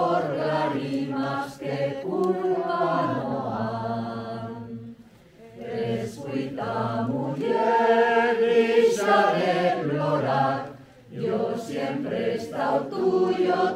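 A group of people singing together unaccompanied, in long held phrases that break off briefly twice.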